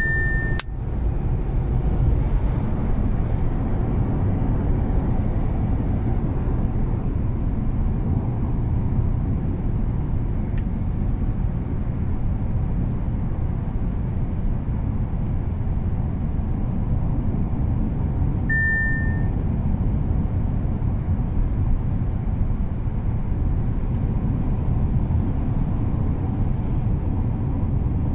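Steady low rumble of road and engine noise inside an Audi A5's cabin at road speed. A short high beep sounds at the very start and again about two-thirds of the way through.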